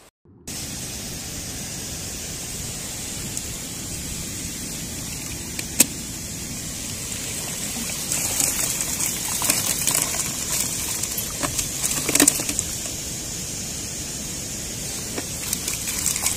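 Steady rush of a fast mountain stream, with a sharp click about six seconds in and scattered clicks and knocks in the second half.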